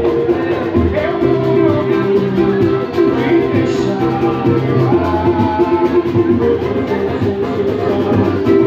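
Samba music with singing over plucked strings and percussion.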